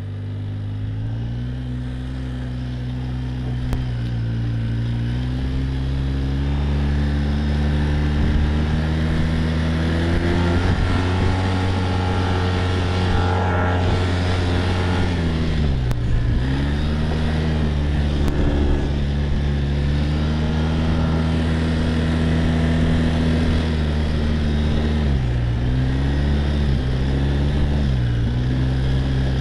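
Quad bike (ATV) engine running under way. Its pitch climbs gradually over the first ten seconds, drops sharply and recovers about halfway through, and dips briefly a couple more times near the end.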